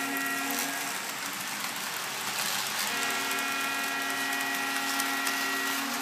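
Sound-equipped model Union Pacific diesel locomotive sounding its horn, a multi-tone chord from its speaker: a short blast at the start, then one long blast of about three seconds starting about halfway through. Beneath it, the steady running noise of the model train on its track.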